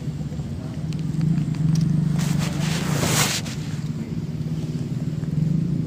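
A steady low engine-like hum throughout, with a brief rustling, scraping noise about two seconds in that lasts around a second.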